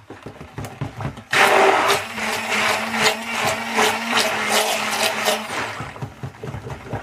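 Stick blender running in a plastic jug of cold-process soap batter, blending in purple colourant. It starts about a second in and runs with a steady motor hum, its head clicking and knocking against the jug. It stops shortly before the end, and a few lighter knocks follow.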